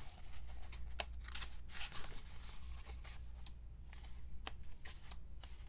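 Pages of a K-pop album photobook being turned and handled: a scatter of short paper rustles and light ticks, over a steady low background hum.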